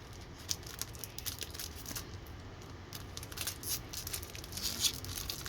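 Foil trading-card pack wrapper crinkling and crackling as it is handled and pulled at to tear it open, in many small irregular crackles.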